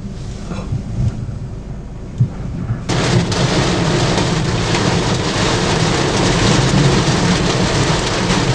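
Low rumble of the storm, then about three seconds in heavy rain starts suddenly and goes on as a loud, steady hiss over a continuing low rumble.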